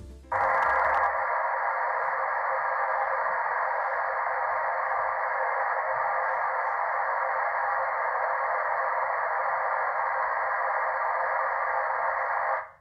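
Test noise from a home-theatre receiver, played through the front left speaker: a steady hiss confined to the midrange. It starts just after the opening and cuts off sharply near the end. The noise is held at about 80 dB C-weighted at the measuring microphone to set that speaker as the reference level.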